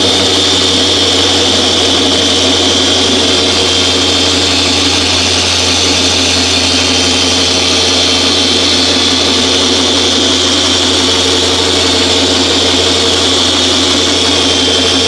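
Dual-action orbital polisher running steadily with a foam pad on car paint, working in a scratch-repair compound: a high motor whine over a low steady hum.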